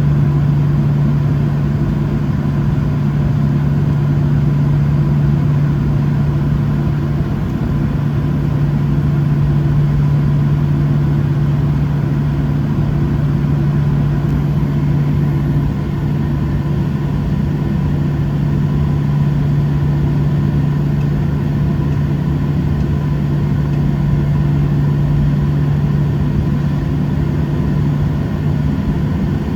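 Steady cabin drone of a Boeing 737-700 with its CFM56-7B engines at idle while taxiing: a constant low hum under a wash of air noise, with no rise in power.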